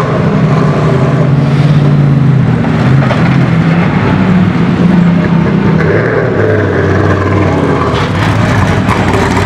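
Mercedes-AMG GT3 race car's V8 engine running at low revs as the car moves slowly through the pit lane: a loud, steady low note that drops a little lower about six seconds in.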